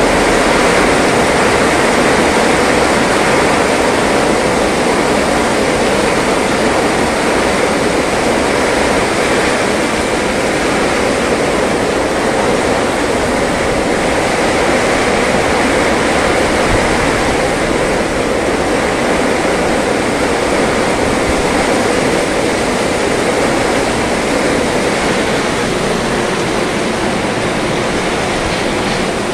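Heavy downpour: a steady, loud hiss of rain falling on a wet road.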